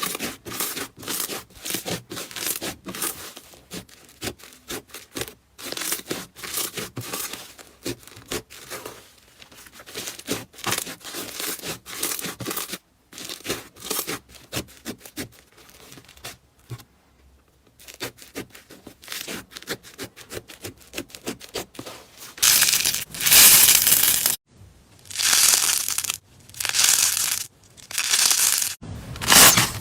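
Slime being squeezed and stretched by hand: a fast run of small crackling pops, turning into louder, longer crackling squeezes a few seconds before the end.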